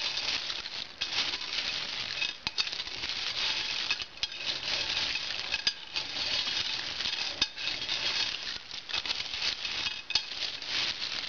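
A metal spoon stirring dry trail mix of pretzels, peanuts, nuts and candy-coated chocolates in a large stoneware bowl: a continuous dry rattle and clatter of hard pieces tumbling over each other, with sharp clicks here and there as the spoon hits the bowl.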